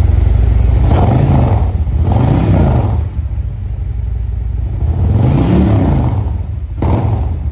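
Harley-Davidson touring bike's V-twin idling with a deep rumble through a loud aftermarket exhaust, blipped up and down three times. A single sharp crack comes near the end.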